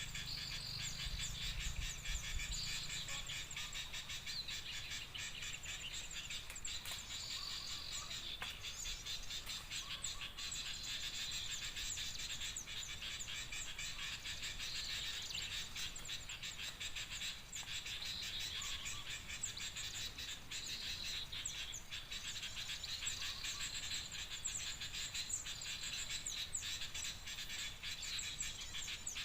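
Dense, unbroken chirping and chattering of many small birds, the kind of noisy small-bird chorus used as a bird-trapping lure call.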